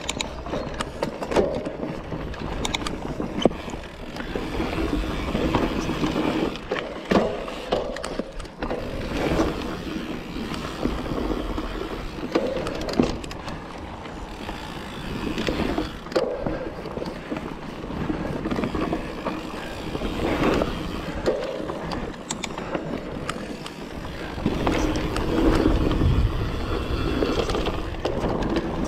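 Mountain bike ridden over a dirt forest trail, heard from on the bike: steady tyre rolling noise with frequent rattles and clicks from the bike as it runs over bumps and roots, and a low wind rumble on the microphone that swells near the end.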